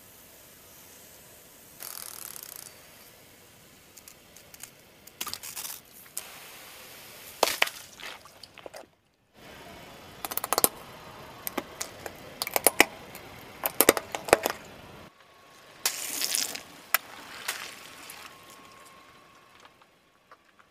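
A car tyre crushing plastic objects in three takes: squeeze bottles, then plastic bicycle bells, then bags of water beads. Clusters of sharp cracks, crackles and pops, loudest in the middle take, broken by two abrupt cuts.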